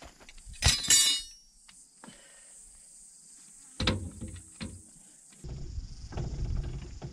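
Steel tools, a jack and wheel brace, clanking and clinking as they are handled to change a shredded tyre on a 4WD, with a few knocks. From about five and a half seconds in comes a run of low, rhythmic scraping and knocking as the jack is worked under the vehicle. Insects shrill steadily behind.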